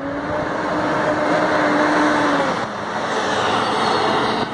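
Heavy truck driving by: a steady engine hum over a loud rush of road noise that swells to a peak about two seconds in.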